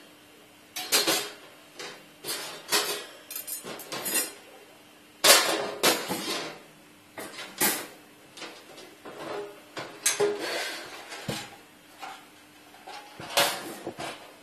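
Thin sheet-metal parts of a foldable charcoal grill clanking and rattling as they are handled, in irregular knocks and short clatters, the loudest about five seconds in.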